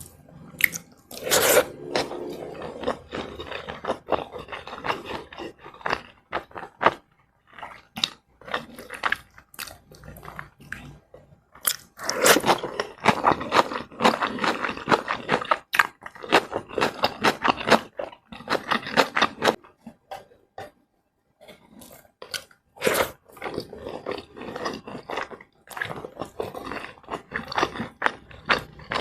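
Close-miked chewing and crunching of fried rice with flour-battered fried liver and coleslaw. Runs of crisp crunches are broken by short pauses. A loud sharp bite comes soon after the start, and another after a brief pause about three-quarters through.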